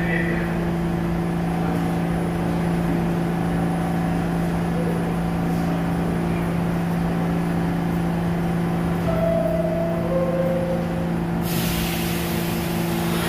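Subway train standing at the platform, giving a steady electrical hum. About eleven and a half seconds in, a loud hiss of air starts, like the brakes releasing.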